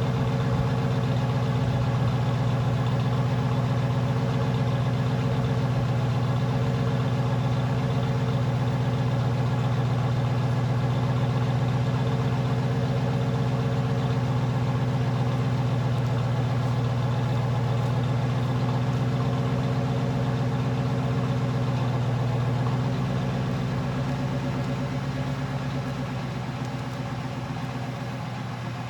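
Ford Crown Victoria's 4.6-litre V8 idling just after a cold start, a steady, quiet exhaust burble. Near the end the idle eases slightly lower and softer.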